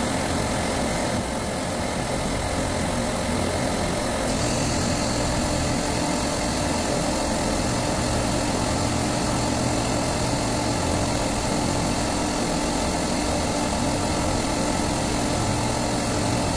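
Steady drone of a supermarket refrigeration rack's compressors running, with the hiss of an oxy-fuel torch's rosebud flame heating a valve body for brazing.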